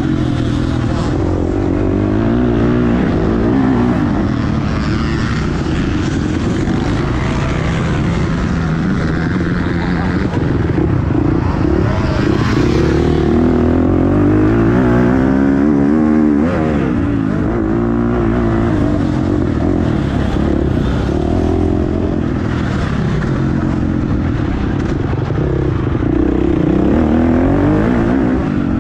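Motocross bike engine heard from the rider's helmet, revving up and dropping back over and over as the rider accelerates, shifts and rolls off around the track, with a steady rush of wind noise.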